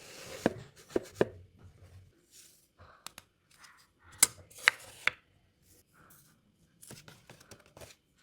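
Sharp knocks of hand tools working wood: three close together near the start and three more around the middle, with short scraping and rustling sounds between them.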